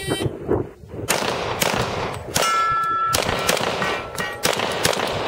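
A short electronic start beep, then a rapid string of about nine pistol shots from a Glock 35 in .40 S&W, roughly two a second. Several shots are followed by a ringing metallic tone, as steel targets are hit.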